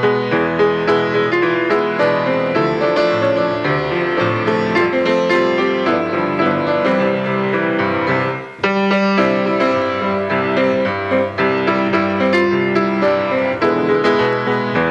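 Piano playing a church postlude, with a short break in the music a little past halfway.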